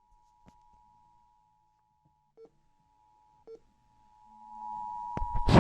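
Emergency Alert System two-tone attention signal, 853 and 960 Hz sine tones sounding together, received over FM radio. It is faint for the first few seconds and grows loud about four seconds in. Scattered small clicks come before a loud crackling pop near the end. The tone marks the start of an emergency alert.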